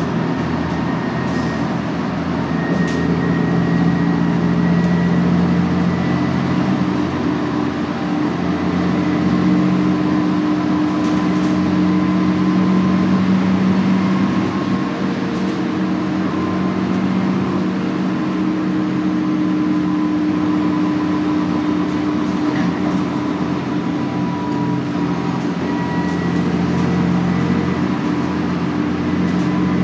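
Inside a New Flyer D40LF diesel transit bus under way: its Cummins ISL engine and Allison B400R automatic transmission drone steadily over road noise. The engine note drifts a little up and down with speed, and a faint high whine rises and falls above it.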